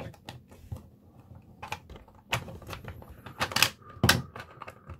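3D-printed PLA plastic box parts clicking and clacking against each other as they are handled and slotted into place, with a few sharper clacks in the second half.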